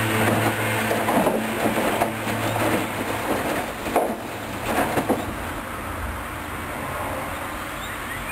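Hoover Dynamic Wash washing machine in its wash phase: the motor turns the drum with a steady hum while the wet load tumbles and knocks, then the drum stops about four seconds in and it goes quieter.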